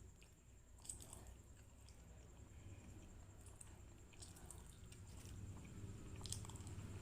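Faint close-up chewing of soft, chewy martabak manis (thick sweet pancake): scattered small wet mouth clicks over a low steady hum.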